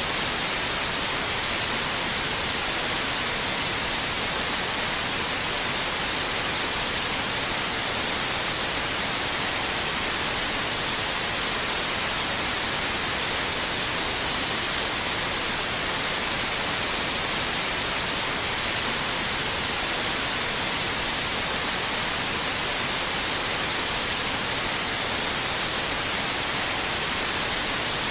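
Steady white noise: an even, unchanging hiss, bright and strongest in the highs.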